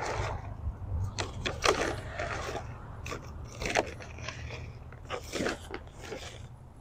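Irregular crunching and rustling from a plastic bag of granular plant food being handled, with its granules shifting inside, mixed with footsteps on wood-chip mulch.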